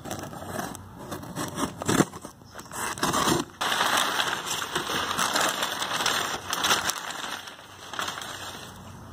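Utility knife slitting packing tape on a cardboard box, then crumpled kraft packing paper being pulled out, crinkling and rustling loudly for several seconds.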